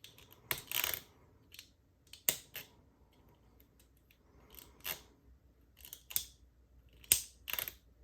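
Lock pick and tensioner working the levers inside a Squire 660 lever padlock: irregular sharp metallic clicks and short scrapes as the levers are lifted one by one.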